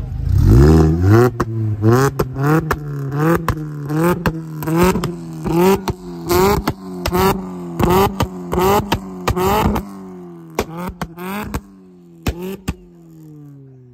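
Four-cylinder engine of a first-generation BMW Mini Cooper S revved hard through its exhaust, blipped about a dozen times in quick succession, with a sharp crack at the top of each rev. It then settles back toward idle with a few last pops.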